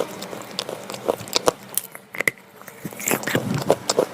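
Slate pencil being bitten and chewed: a run of sharp, irregular crunches that eases off briefly near the middle and then picks up again.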